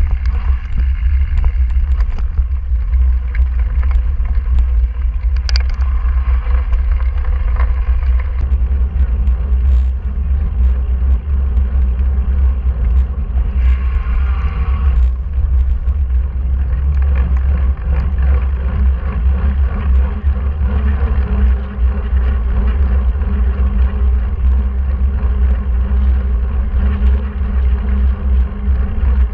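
Steady low rumble of wind buffeting the microphone of a camera riding on a moving mountain bike, mixed with the bike's tyre and rolling noise over trail and road, with scattered small rattling clicks.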